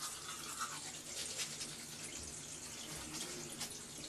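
Teeth being brushed with a toothbrush over a bathroom sink, with water running from the tap in a steady hiss.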